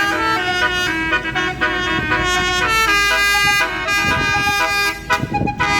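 A tour bus's basuri musical air horn playing a tune, one held note after another changing pitch in quick steps, with a brief rough noise under it near the end.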